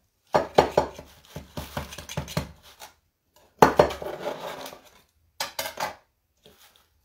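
A metal knife scraping and clinking around the inside of a metal baking pan, loosening freshly baked, still-hot bread from it. There are two runs of scraping, then a few sharp clicks about five and a half seconds in.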